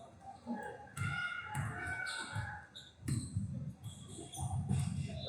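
Basketball game sounds in a gym: a ball bouncing on the court in repeated thumps, with short squeaks and distant voices.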